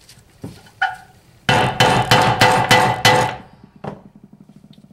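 About six quick, ringing metal-on-metal hammer blows on a tool wedged against the steel bearing race in an NP208 transfer case's aluminum rear cover. The blows start about a second and a half in and stop about three seconds in. They are an attempt to drive out the stuck front output shaft rear bearing race, which is not moving.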